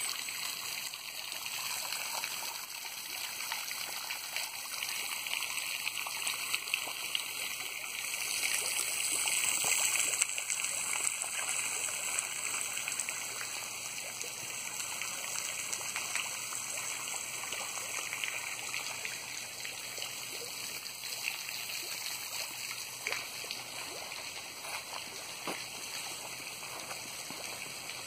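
Water trickling and running steadily from a small waterfall into a garden pond, growing a little louder about nine seconds in.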